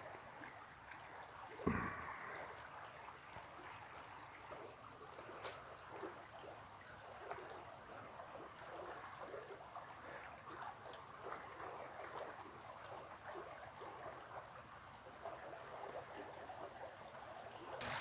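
Faint, steady babbling of a small creek, with a single thump about two seconds in.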